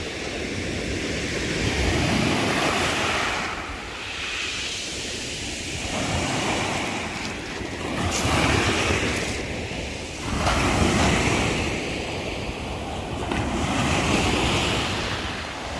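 Sea surf breaking on the shore, swelling and washing back every few seconds, with wind rumbling on the microphone.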